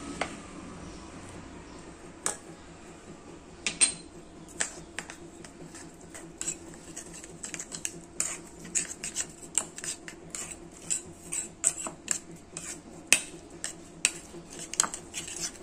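Metal spoon stirring a thick soy-based dipping sauce in a ceramic bowl, clinking against the bowl's side. A few scattered taps at first, then steady clinking from about four seconds in.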